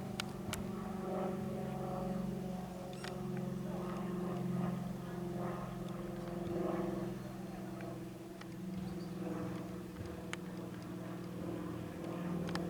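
Four-bladed Cirrus SR-22T on approach, its propeller and engine droning steadily with a strong low pitch that swells and eases a little. A few sharp clicks are heard over the drone.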